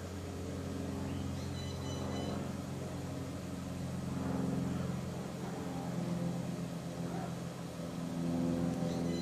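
Steady low machine hum, slowly getting louder.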